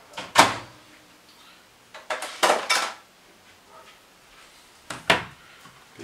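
Kitchen handling knocks: a sharp knock about half a second in as the microwave door is shut, a quick run of clatters two to three seconds in, and another knock near the end as a plastic cutting board is set down on the wooden counter.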